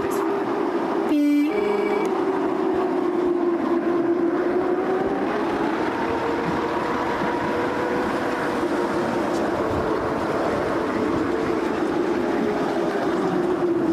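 Narrow-gauge passenger coach running along the track, heard from on board: a steady rumbling ride with a continuous droning tone that wavers slowly in pitch. A brief louder break comes about a second in.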